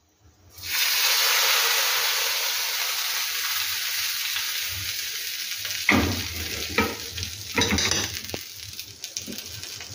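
Hot cumin-and-garlic tadka oil poured onto yogurt kadhi, sizzling loudly the moment it hits, the hiss slowly dying down. A few short knocks sound in the second half.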